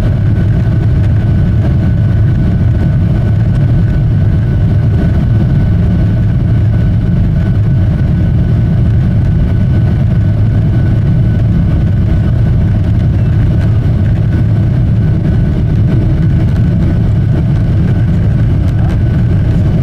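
Steady airliner cabin noise in flight: a low, even engine and airflow rumble with a faint steady whine above it.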